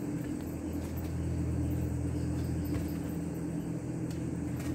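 Steady low hum of a running motor, with a few faint clicks.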